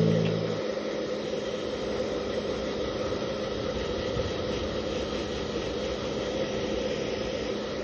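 Steady rushing noise with a faint low hum.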